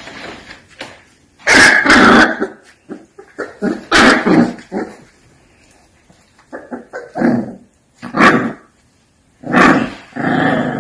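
Alapaha Blue Blood Bulldog puppies growling and barking in short, loud bursts as they play-fight.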